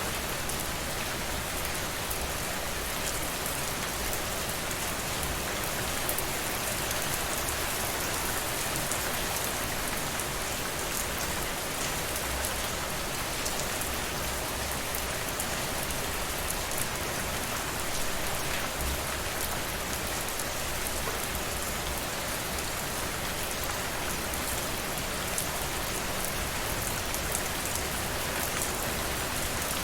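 Steady rain falling and pattering on a surface, a dense even hiss with many fine drop ticks and no pauses.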